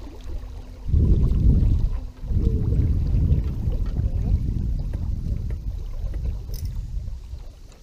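Wind buffeting the camera's microphone: a loud, uneven low rumble. It comes in about a second in, drops out briefly near two seconds, then eases off near the end.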